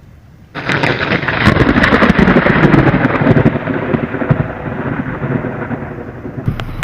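Close thunderclap: a sudden loud crack about half a second in, sharp crackling for a few seconds, then a rumble that slowly fades. Near the end it gives way abruptly to a steadier noise.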